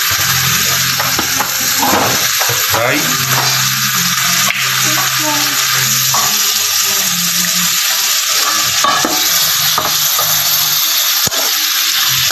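Sliced wild pork and aromatics sizzling in a hot stainless steel wok while a metal spatula stirs them, with a few sharp ticks of the spatula against the pan.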